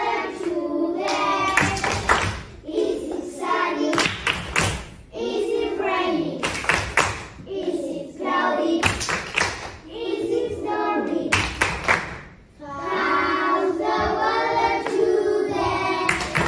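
A class of young children singing a song together, with rhythmic hand claps between the sung lines.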